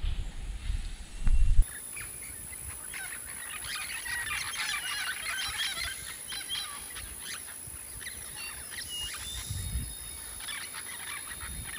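Low rumbling noise that cuts off suddenly, then a flock of birds calling overhead: many overlapping squawks and chirps, over a steady thin high tone.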